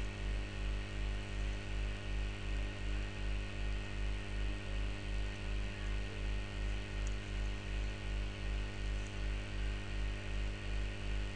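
A steady low hum made of many evenly spaced tones over a faint hiss, pulsing about two to three times a second.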